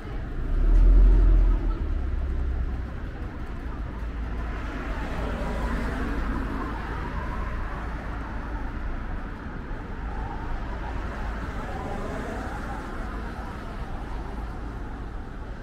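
City street ambience: a steady hum of traffic with indistinct voices in the background. A loud low rumble fills the first two seconds, then eases.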